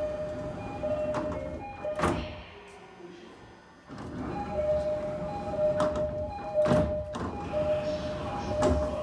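Railway door chimes, from the train and the platform screen doors, ringing together out of step so that their notes clash, repeating a two-note pattern. The chimes pause with a sharp thud about two seconds in, start again about four seconds in, and are cut by two more thuds later on.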